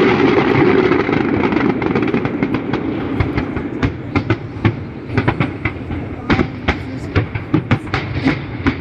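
Aerial fireworks crackling. A dense rush of noise dies away in the first couple of seconds, then come many sharp, irregular pops and crackles.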